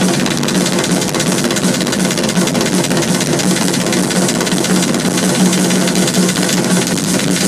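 Rock drum kit played fast and loud in a live drum solo: a dense, unbroken run of rapid strokes that fills the arena.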